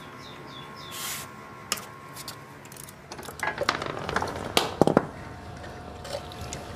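Metal tools clinking and knocking, as in workshop work on a motorcycle engine, with a quick run of clanks in the second half and the loudest strikes about two-thirds of the way through, over a faint steady hum.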